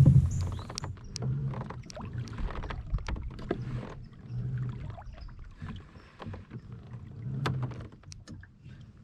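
Fishing kayak on the water: scattered knocks and taps against the hull, with a low rumble that swells every second or two.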